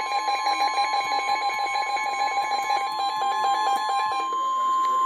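NOAA Weather Radio warning alarm tone, a steady single 1050 Hz tone, announcing a severe thunderstorm warning. For the first four seconds or so a weather radio receiver's own alarm beeps rapidly over it. The beeping then stops and the steady tone carries on alone.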